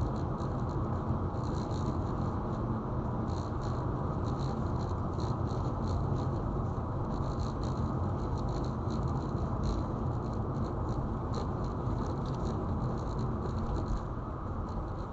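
Steady low road and tyre rumble of a car driving at speed, with frequent light, irregular ticks over it.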